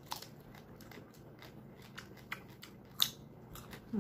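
Crisp bites and chewing of unripe green mango slices: scattered short crunchy clicks, the loudest about three seconds in.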